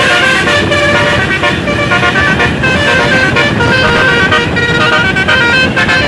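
Basuri 'telolet' multi-tone bus air horns playing a tune: a loud, continuous run of short horn notes that change pitch every fraction of a second, several notes sounding together.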